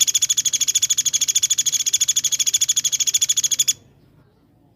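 A songbird giving a loud, very fast trill of evenly repeated high notes, roughly fifteen to twenty a second, that cuts off abruptly a little before the end.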